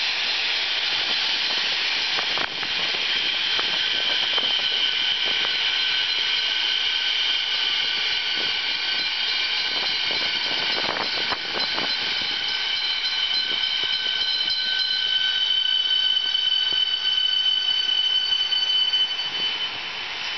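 Siemens Nexas electric train running past: a steady rush of wheels on rail with several high, steady whining tones from its traction equipment, which grow louder in the last few seconds. A brief run of clicks comes about ten seconds in.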